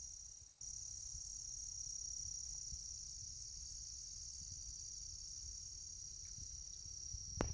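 Steady high-pitched chorus of insects, with a low rumble underneath and one short thump near the end.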